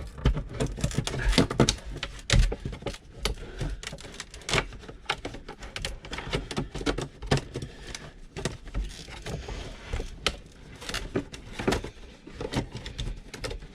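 Irregular clicks, knocks and rattles of hands working on a diesel heater's fittings while it is refitted, with no motor running.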